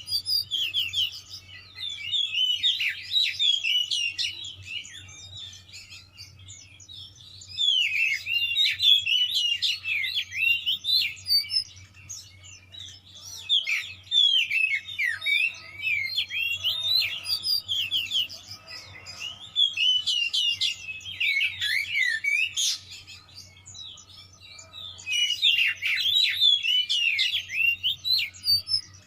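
Oriental magpie-robin (kacer) singing hard in about five bursts of fast, varied whistled phrases, each a few seconds long with short pauses between. It is the excited, fighting-mood song that hobbyists call 'gacor emosi', packed with mimicked phrases of other birds ('full isian').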